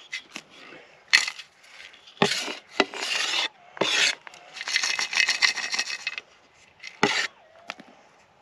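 Gravel and small stones scraping and rattling in about six short bursts, with small clicks between, as loose dirt is raked and picked through.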